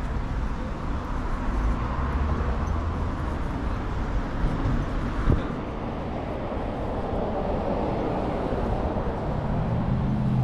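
Street traffic: cars running along the road in a steady rumble, with one sharp knock about five seconds in and a low engine hum coming up near the end.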